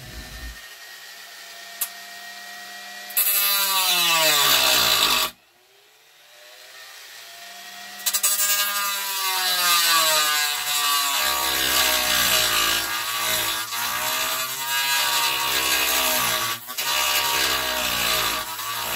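Rotary tool with a thin cut-off wheel running at low speed, then cutting into the plastic hinge tab of a turntable dust cover. About three seconds in the cutting starts loud; the tool stops suddenly about five seconds in. It builds back up and cuts steadily again from about eight seconds, its pitch wavering under the load.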